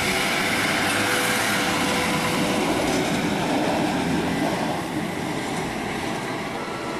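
A yellow overhead-line maintenance railcar running past on the tracks, its wheels on the rails making a steady, loud running noise that eases off a little after about four seconds.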